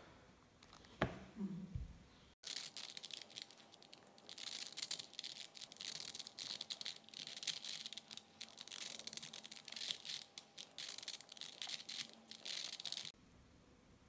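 Plastic layers of a V-Cube 4x4 puzzle cube clicking and rattling as the cube is turned and handled in the hands. A few stray clicks come first, then a dense run of small clicks starts about two and a half seconds in and stops about a second before the end.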